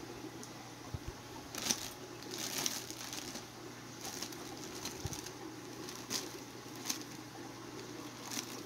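Packing material being handled: short, scattered rustles and crinkles of newspaper and plastic, over a steady low hum.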